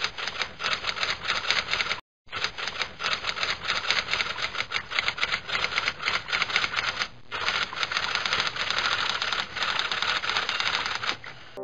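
Typewriter keys clacking in a rapid, continuous run of strokes, with a short break about two seconds in and a brief pause about seven seconds in.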